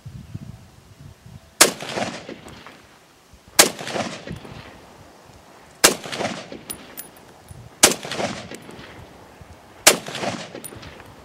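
Tokarev SVT-40 semi-automatic rifle firing 7.62x54R rounds, five single shots spaced about two seconds apart, each followed by a short echo.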